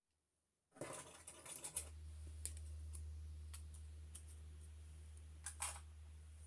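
Scratching and scattered sharp clicks, like something being handled, starting suddenly about a second in over a steady low hum.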